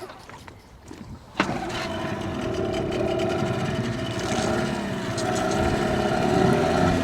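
Two-stroke outboard motor starting with a sharp knock about a second and a half in, then running steadily and growing a little louder.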